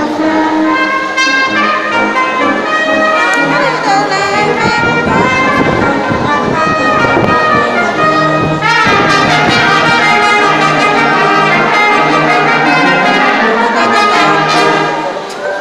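Live brass ensemble of trumpets and trombones playing a piece in full harmony. About halfway through the playing gets fuller and louder, and it breaks off near the end.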